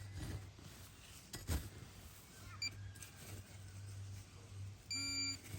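A couple of faint knocks, then near the end a short, steady electronic beep from a metal detector sounding on a target in the freshly dug hole.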